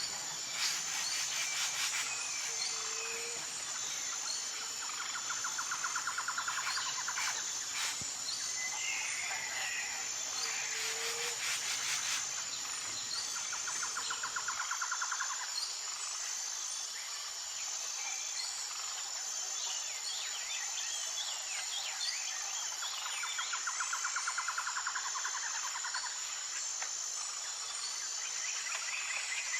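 Forest ambience: a steady high-pitched drone of insects throughout, with scattered bird chirps and calls and a few rapid trills lasting a second or two each.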